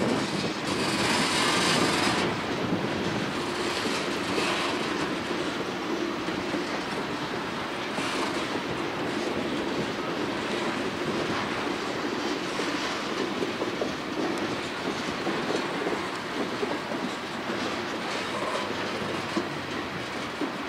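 Freight train of covered hopper cars rolling slowly past, wheels clicking over rail joints in an uneven stream, with a louder high hiss for about a second near the start.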